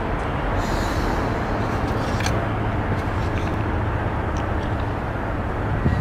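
Steady low rumble and hiss of outdoor background noise, with a few light clicks and taps from items being handled at the open car boot.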